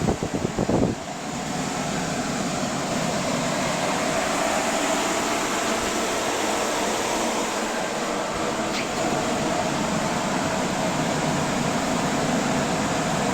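Steady, even mechanical hum like a running fan or engine, with a few knocks in the first second.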